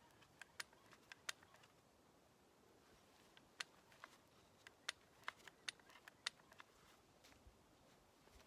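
Faint, sharp clicks and pops at irregular intervals, a dozen or so over several seconds: grease being pumped into a backhoe's grease fitting and squeezing out of the joint.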